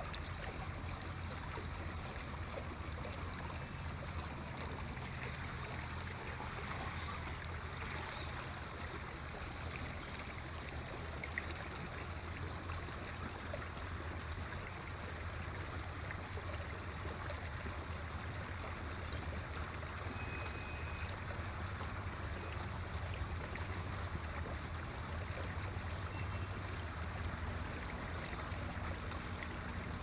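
Water flowing in an irrigation channel, a steady rush and gurgle that does not change.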